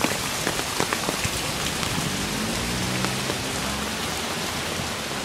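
Heavy typhoon rain pouring steadily, with sharp ticks of drops striking close by. A low steady hum runs under it from about two seconds in to about four seconds in.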